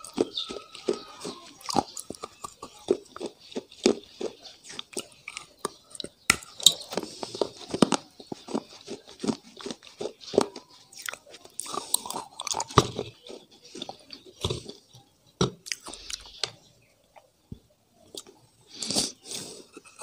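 A person biting and chewing hard, brittle pieces close to the microphone, with sharp crunches coming several times a second. The crunching thins out briefly near the end, then comes another loud bite.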